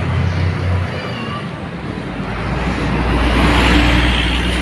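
A large bus driving past on a road, its engine rumble and tyre noise swelling to a peak about three to four seconds in as it comes close.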